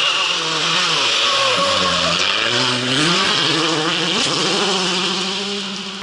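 Rally car engine running hard through gear changes as the car approaches: the revs drop about a second in, climb again by about three seconds, dip and climb once more near the four-second mark, over a steady high hiss.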